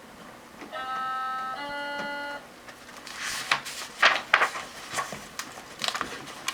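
Two-note electronic chime, a higher note then a lower one, each held under a second: the read-along recording's signal to turn the page. After it come a few seconds of rustling and clicking paper-handling noise as the page is turned.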